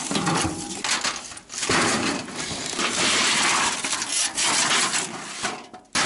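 Junk in a dumpster being shoved about by gloved hands: stiff panels, cardboard and plastic bags scraping, rustling and clattering, with a few sharp knocks.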